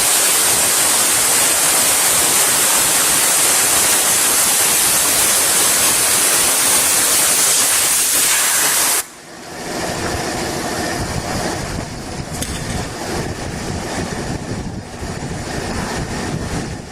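Loud steady hiss that cuts off abruptly about nine seconds in, giving way to a quieter, lower rumbling noise.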